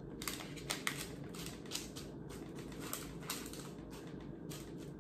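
Dried pinto beans clicking and rattling as they are handled into a parchment-lined pie shell, with the plastic bean bag crinkling; many small irregular clicks.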